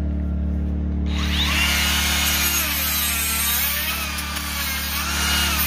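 Cordless rotary tool with a cone-shaped grinding-stone bit grinding into wood from about a second in, carving feather texture. Its whine dips and rises as the bit bites and eases off.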